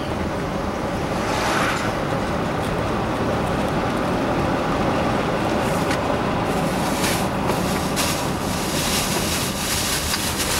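Road and engine noise of a moving vehicle heard from inside the cabin, a steady rumble with tyre noise. A few short knocks or rattles come in the second half.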